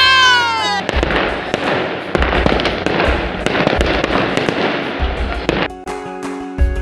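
Fireworks fizzing and crackling, a dense hiss full of sharp pops, which cuts off about six seconds in, leaving background music with a steady beat. A short rising 'wow' voice sounds just before the crackle starts.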